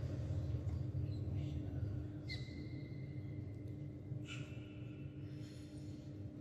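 Quiet mosque prayer-hall room tone during a silent stretch of the prayer: a steady low hum, with a few faint short sounds about two and four seconds in and a thin high tone between them.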